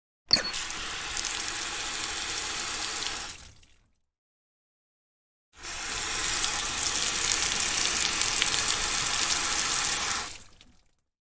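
Water running hard from an outdoor faucet in two separate runs. The first starts with a sharp click and lasts about three seconds before fading away. After a gap of silence, the second run, a little louder, lasts about five seconds and fades out near the end.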